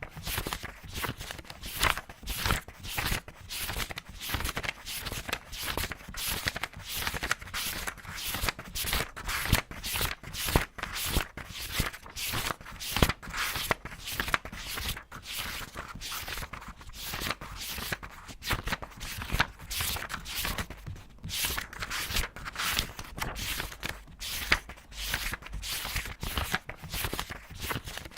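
Paper pages being turned quickly one after another, a rapid run of crisp rustles and flicks, two or three a second.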